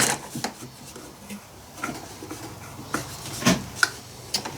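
A few light clicks and knocks, spread over a few seconds, of the Stihl 041 AV Super chainsaw being handled after its engine has stopped.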